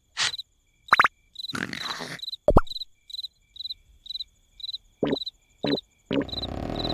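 Cricket chirps repeating about two to three times a second as a cartoon night-time background, broken by short cartoon sound effects, including a quick upward glide and a denser sound that starts near the end.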